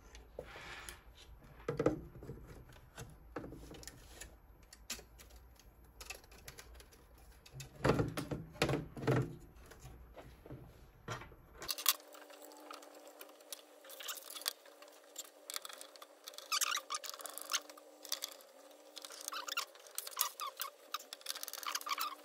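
Hands handling a display panel, wiring and small tools on a wooden desk: scattered light clicks, taps and rustles, with a few louder knocks of parts being set down. About halfway through, the sound turns thinner, with a faint steady hum under the clicks.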